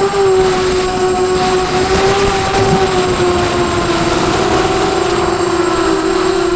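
Emax Night Hawk 280 Pro quadcopter's brushless motors and propellers whining steadily in flight, the pitch wavering slightly with throttle, over a rushing noise.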